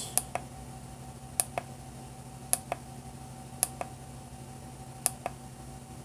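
Pushbutton on a digital power meter clicked five times, each press a quick double click, over a steady low hum.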